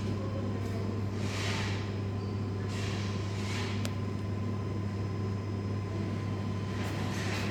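Steady low machinery hum of a water-cooled central HVAC plant room, with a faint high whine. Short swells of hissing rise and fall every few seconds.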